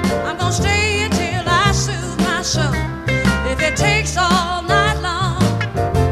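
Background music: a song with a wavering sung lead vocal over bass notes and a steady drum beat.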